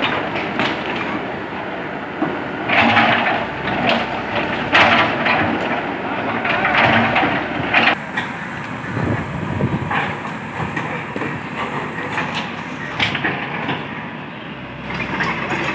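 L&T-Komatsu tracked excavator running while its bucket breaks away brick and concrete masonry, with repeated knocks and bursts of crunching, clattering rubble, heaviest in the first half.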